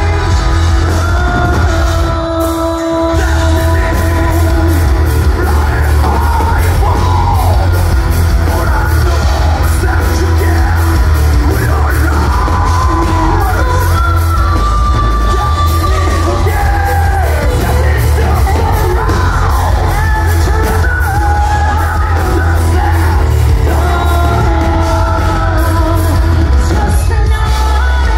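Live metal band playing loud, with heavy drums and bass, distorted guitars, and sung and shouted vocals in a concert hall. The low end drops out briefly about two and a half seconds in.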